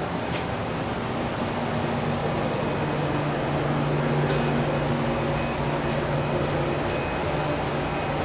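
A steady low machine hum, a little louder about two seconds in, with a few faint clicks.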